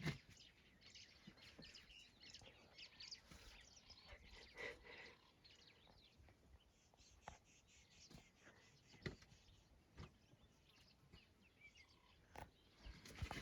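Faint natural ambience: scattered bird chirps, with a few soft clicks and knocks now and then.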